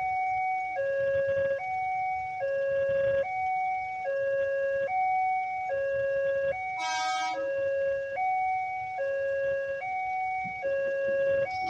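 Railway level-crossing warning alarm sounding its electronic two-tone chime, switching between a lower and a higher tone a little more than once a second, to signal an approaching train. A short horn blast cuts in about seven seconds in.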